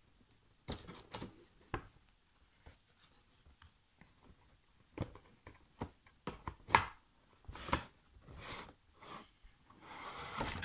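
Cardboard toy box with a clear plastic window being handled: scattered short rubs and scrapes of fingers on the packaging, a sharper click about seven seconds in, and a longer rustling scrape near the end as the box is turned.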